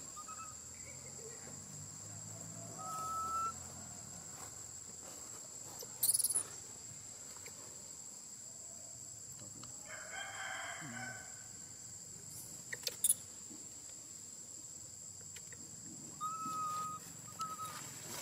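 A rooster crowing once, about ten seconds in, among a few short whistle-like animal calls, over a steady high insect whine.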